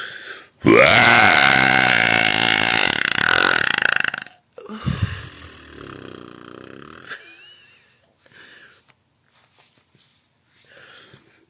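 A woman's deliberate, very loud burp held for about three and a half seconds, starting about half a second in, followed by a shorter, quieter and lower second burp.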